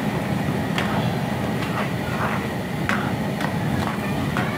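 Steel ladle stirring chicken karahi in a metal pan, clinking and scraping against the pan a few times a second at irregular intervals, over a steady low rumble.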